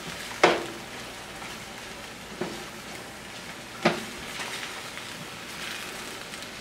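Lentils and mushrooms sizzling in a skillet while being stirred with a wooden spoon, the spoon knocking against the pan three times over a steady hiss.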